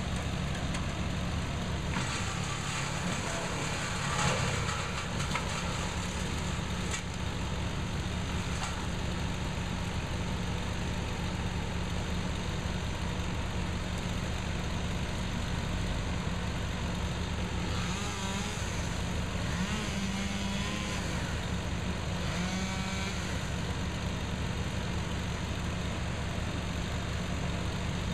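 Wood chipper's engine running steadily at idle, a low drone with no wood being fed through.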